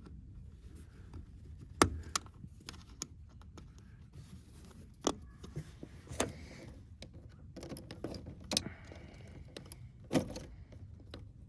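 Scattered sharp clicks and light metallic clinks, the loudest about two seconds in, as wires and their push-on connectors are handled and refitted in a heat pump's electrical panel.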